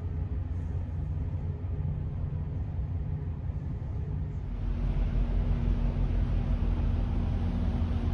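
Steady low rumble of an LNG-fuelled ferry underway, its engines and machinery running. About four and a half seconds in it grows louder, with more hiss and a steady hum joining in.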